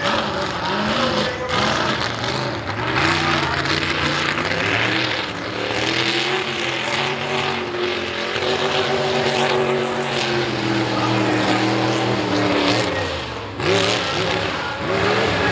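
Mega mud truck engines running hard on open headers, the pitch climbing and falling again and again as the throttle is worked. Near the end the sound dips briefly, then another engine comes in at high revs.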